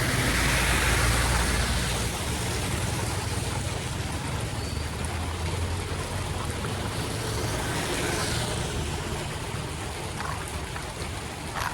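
Floodwater rushing steadily with a low rumble, a little louder in the first couple of seconds.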